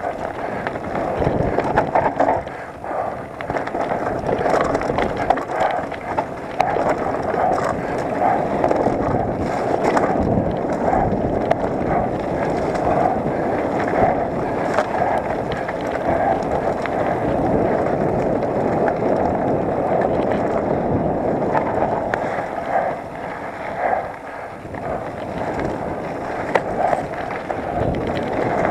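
Mountain bike rolling fast down a dry dirt trail: continuous rumble of knobby tyres over loose dirt and stones, with the bike rattling and knocking over bumps.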